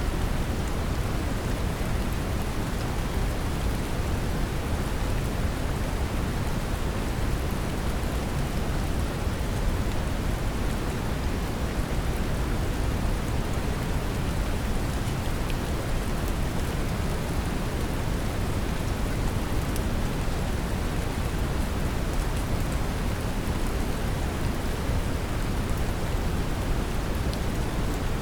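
Steady brown noise, deep and rumbling with most of its weight at the bottom, mixed with the even hiss of gentle rain and faint scattered drop ticks.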